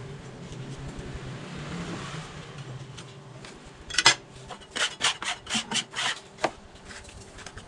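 Knife chopping cooked goose organs on a chopping board: one sharp chop about four seconds in, then a quick run of about six more chops, over low background noise.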